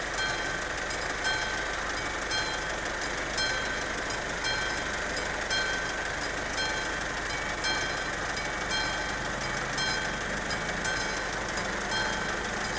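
Level-crossing warning bell, the classic electric bell of an AŽD 71 crossing installation, ringing steadily in pulses about once a second while the crossing is closed.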